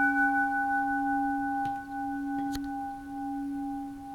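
Antique bronze Buddhist temple bell ringing on after a single strike: a low steady hum with several higher overtones, one of them slowly pulsing, fading gradually as it keeps going. A faint click sounds about two and a half seconds in.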